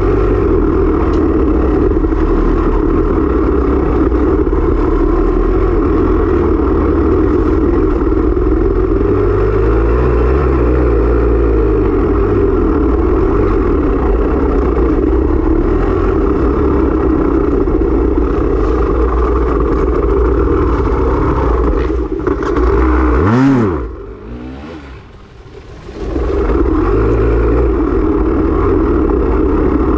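Dirt bike engine running hard under throttle. About 23 seconds in it revs up sharply, then drops away almost to quiet for about two seconds before pulling again.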